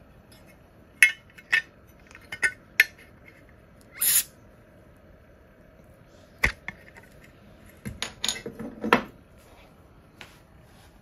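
Crown cap being prised off a glass beer bottle with a stainless steel bottle opener: sharp clicks and clinks of metal on glass, a short hiss about four seconds in, and a cluster of clacks around eight to nine seconds as the cap comes off.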